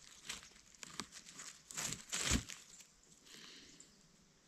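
Rustling and crunching of forest litter and twigs, a run of sharp crackles that is loudest about two seconds in and dies down after about three seconds.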